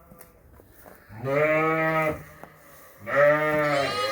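Sheep bleating: a long call about a second in, then a second, longer call starting about three seconds in that runs on past the end, with a faint call at the very start.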